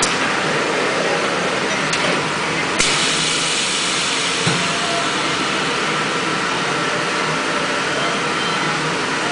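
High-frequency plastic welding press running with a steady mechanical noise, with sharp clicks about two and three seconds in and a low thump a little later as the sliding tray carries the mould under the press head.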